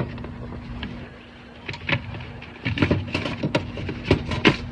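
Irregular clicks, knocks and rustles of a package being handled, starting a few seconds in, over a steady low hum.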